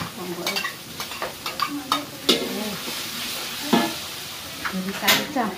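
Food sizzling and frying in a large metal wok over a wood fire, with a ladle scraping and clinking against the pan in a series of sharp clicks.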